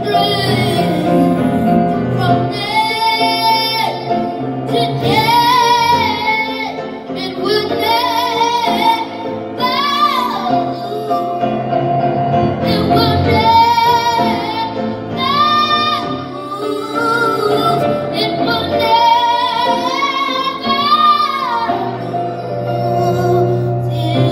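A young boy singing solo into a microphone over instrumental accompaniment, in long sung phrases with vibrato.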